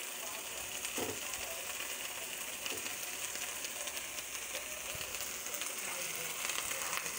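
Shrimp sizzling steadily in a hot wok, with a faint click about a second in.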